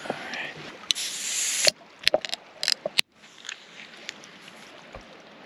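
Handling noise of a camera being moved and gripped: a rush of rubbing hiss that cuts off suddenly, then several sharp knocks and clicks against the microphone, before it settles to a quiet background.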